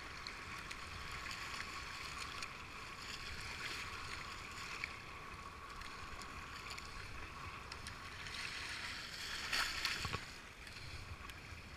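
Fast-flowing river rapids rushing steadily around a kayak, with brief splashes of paddle strokes. A louder burst of splashing comes near the end as the kayak punches through a wave.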